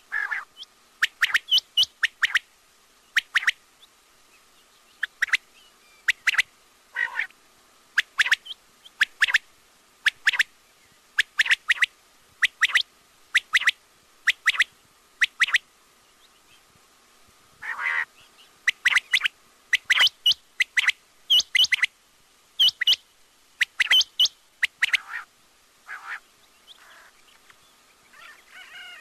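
Quail calling: short, sharp calls in quick runs of two or three notes, repeated every second or so, with a pause of about two seconds near the middle. A faint steady tone runs underneath.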